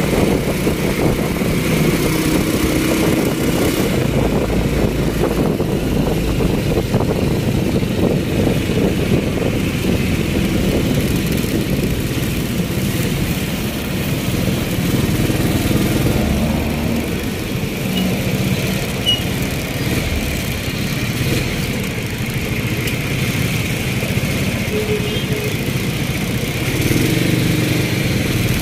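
Motorcycle engine of a tricycle running steadily as it drives along, heard from the open rear seat behind the driver, with road and wind noise.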